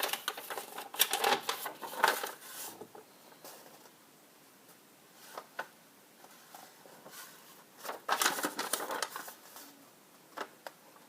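Close-up handling of a toy's paper manual and plastic packaging: bursts of rustling and small plastic clicks, with short quiet gaps between.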